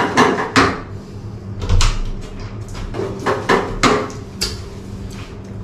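A wooden spoon knocking and scraping against a frying pan as thick sauce is scooped out: a run of sharp knocks, some in quick pairs, with a low rumble about two seconds in.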